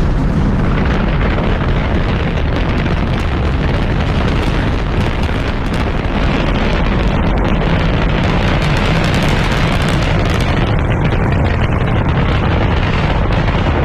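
Rocket engine exhaust during launch: a loud, steady rumble, heaviest in the low end.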